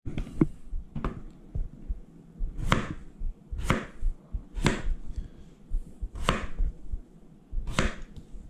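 Kitchen knife cutting small red potatoes into chunks on a bamboo cutting board: about seven sharp knocks of the blade meeting the board, roughly one a second, with soft handling noise between.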